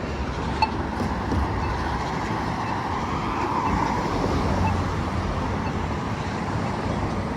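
Steady road traffic at an intersection, with a vehicle passing and swelling a little mid-way. Faint ticks about once a second come from the Polara iNS2 pedestrian push-button's locator tone.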